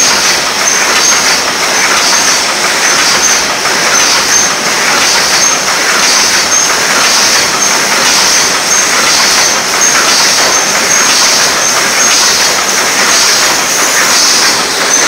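Double-wall 9 oz paper cup forming machine running: a loud, steady mechanical clatter that repeats about twice a second, with a high hiss over it.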